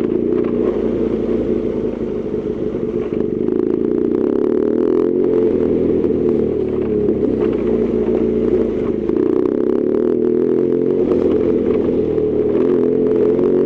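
BMW R1200GS Adventure's boxer-twin engine running under way, its pitch drifting up and down with the throttle, with scattered light clattering over it.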